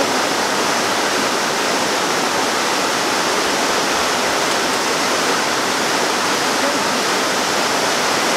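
Steady heavy rain: an even, unbroken hiss with no gunshots or clicks through it.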